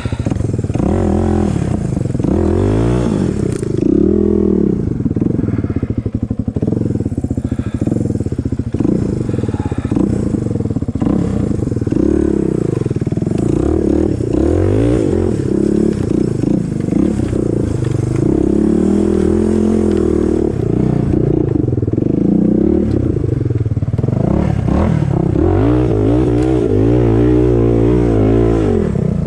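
Motorcycle engine revving up and down over and over, its pitch rising and falling every second or two as the bike is worked up a muddy hill.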